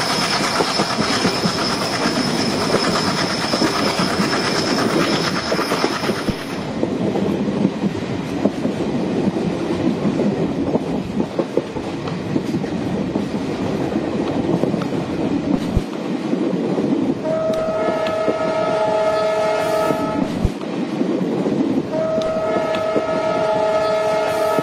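Train running, wheels rumbling and clicking over the rails, with a steady high-pitched whine for the first six seconds. The locomotive horn sounds two long blasts, one about 17 seconds in lasting some three seconds, and a second starting about 22 seconds in that is still sounding at the end.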